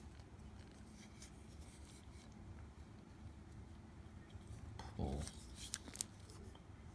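Plastic car emergency escape hammer being handled: faint light clicks, then a short cluster of louder knocks and clicks about five seconds in.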